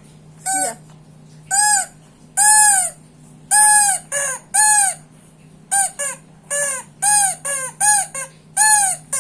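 A baby's toy whistle sounded by her breath, giving about fourteen short squeaky hoots, each rising and falling in pitch, in an uneven run of single and paired notes.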